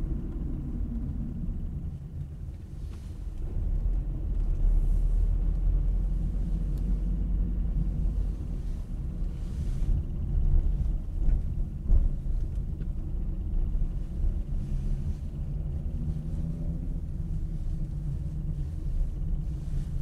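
A car driving slowly, heard from inside the cabin: a steady low engine and road rumble, with a faint engine hum that rises and falls in pitch.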